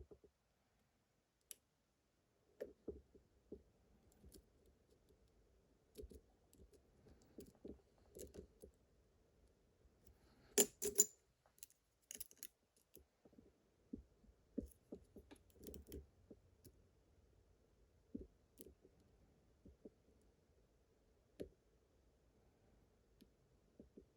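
Faint, irregular clicks and scrapes of a lock pick and tension wrench working the pins of a pin-tumbler lock, with a few sharper metallic clicks about ten and twelve seconds in.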